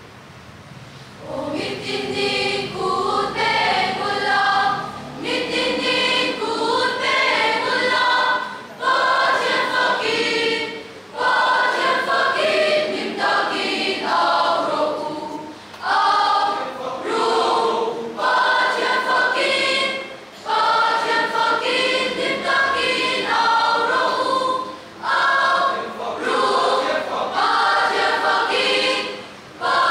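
Large mixed choir of young women and men singing, starting about a second and a half in, in phrases separated by short breaks.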